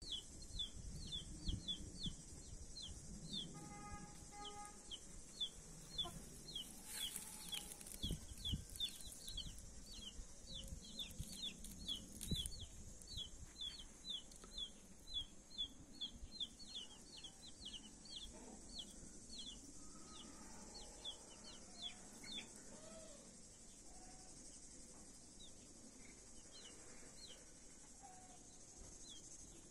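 Australorp chicks peeping steadily, short high falling peeps about three a second, with occasional low clucks from the mother hen. A steady high hiss runs underneath.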